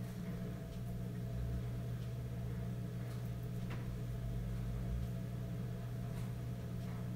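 A steady low hum, with a few faint taps and rubs as hands press and smooth a backsplash tile sheet against the wall.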